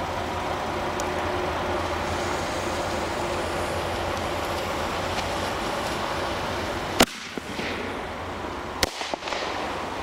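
Small ground fireworks going off: a steady spraying hiss for about seven seconds, then a sharp bang, and near the end a second bang followed by a few quick smaller pops.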